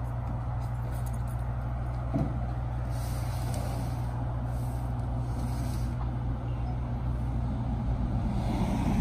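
Delivery truck's engine idling steadily, with a single knock about two seconds in.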